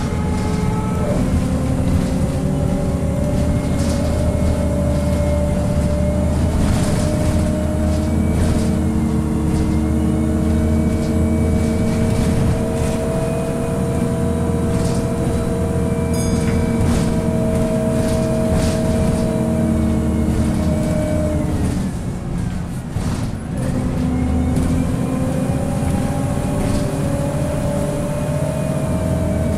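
Onboard a Scania L94UB bus under way: the engine runs steadily while the ZF Ecomat four-speed automatic gearbox whines loudly, its pitch rising slowly with road speed. A little past two-thirds in, the whine falls away and the sound briefly drops, then the whine returns and climbs again.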